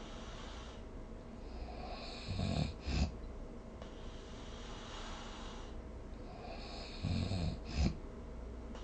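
A person snoring, two snores about five seconds apart. Each is a low buzzing snore that ends in a short, louder burst, over a steady background hiss.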